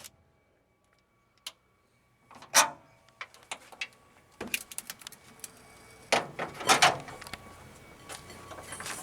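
Scattered clicks and knocks of tools and metal parts being handled, after about two seconds of near silence; the loudest knocks come about two and a half seconds in and again around six to seven seconds in.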